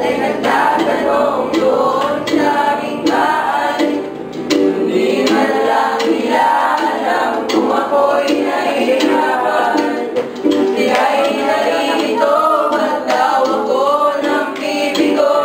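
A group of young voices singing a Tagalog song together, accompanied by a strummed ukulele.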